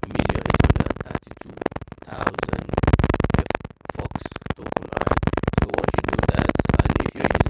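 Background music with a synthesizer, playing in phrases with short breaks.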